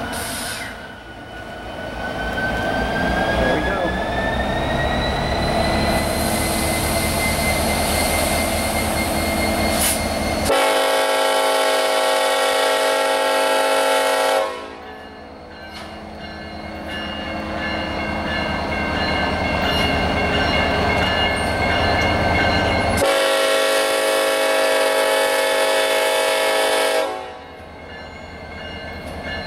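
Norfolk Southern SD70ACe diesel-electric locomotives running under power with a steady engine rumble; a whine rises in pitch over the first few seconds. The lead unit's multi-chime air horn sounds two long blasts of about four seconds each, some twelve seconds apart.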